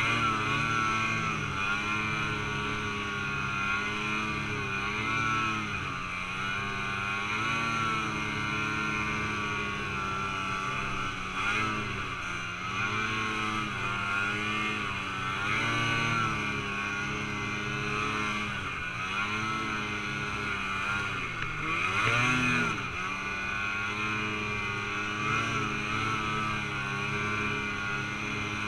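Snowmobile engine running under way through deep snow, its pitch rising and falling again and again as the throttle is worked, with a deeper drop and climb about three quarters of the way through.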